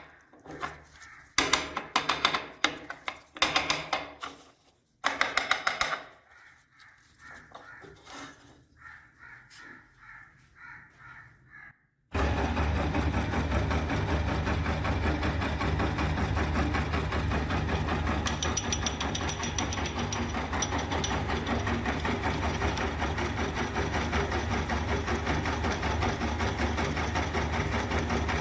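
Intermittent clicks and rattles of handling, then an electric meat grinder's motor switched on about twelve seconds in, running with a steady low hum and a busy mechanical whirr.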